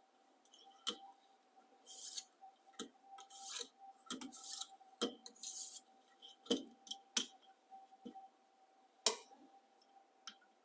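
Fine-grit stone on a ViperSharp guided sharpener drawn along the edge of a high-carbon stainless meat slicer knife in about four separate scratchy strokes, with clicks and taps of the stone and rig in between. A sharp click near the end is the loudest sound. A faint steady tone hums underneath.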